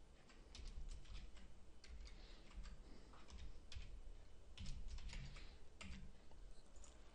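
Computer keyboard typing: faint keystroke clicks in short runs with brief pauses between them.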